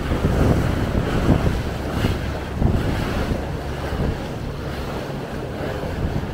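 Boat running under way: wind buffeting the microphone over the rush of water along the hull and a steady low engine hum.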